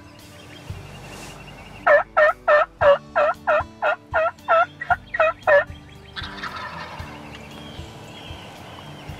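Wild turkey yelping: a run of about a dozen loud, evenly spaced yelps, roughly three a second, starting about two seconds in and ending near six seconds, followed by fainter, busier calling.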